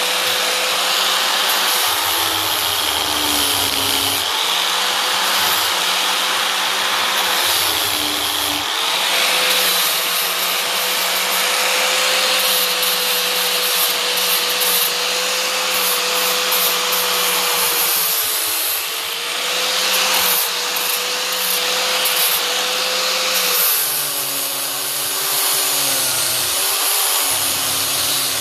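Electric angle grinder with a disc running continuously against wood, shaping a carving. Its motor whine dips and recovers as the disc bites into the wood under a rough grinding rasp, and the pitch shifts lower about three-quarters of the way through.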